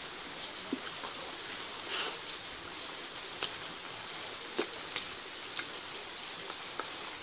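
Scattered light clicks and knocks, about seven of them at uneven intervals, over a steady hiss.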